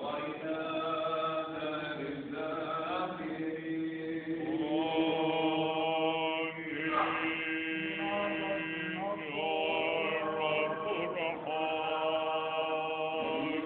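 Orthodox church chant: voices singing long, drawn-out notes over a steady held note underneath.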